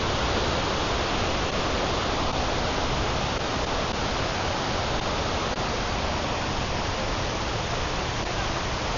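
Kuang Si Waterfall's cascades of falling water making a steady, even rush.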